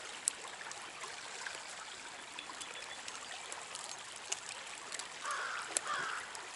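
Small trout stream running and trickling steadily, with a few sharp clicks. About five seconds in, two short calls sound one after the other.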